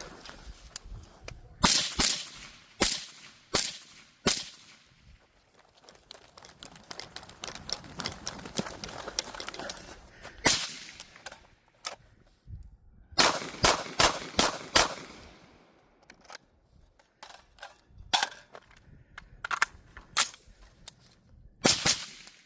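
Rifle and pistol gunshots fired in a timed course of fire: short strings of sharp shots, one a fast run of about six, separated by pauses of a few seconds.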